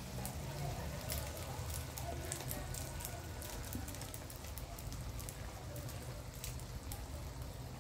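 Mushrooms sizzling in a hot pan with scattered crackles and spits as cooking cream is poured over them, above a steady low hum.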